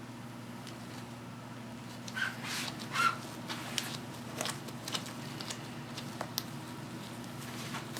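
Small handling noises from working the adhesive repair: scattered clicks and rustles, busiest a couple of seconds in, with two short squeaks, over a steady low hum.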